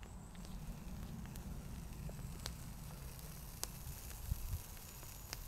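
A small wood campfire crackling now and then: a few sharp, separate pops over a low steady rumble, with some soft thumps a little past the middle.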